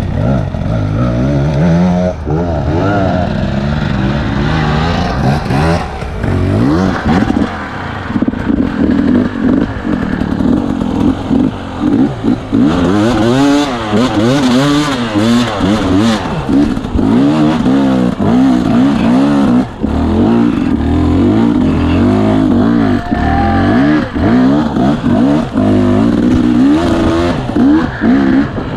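2017 KTM 250 EXC two-stroke enduro bike engine revving up and down again and again as it is ridden over a rough, rutted trail, with the bike rattling and clattering over the bumps.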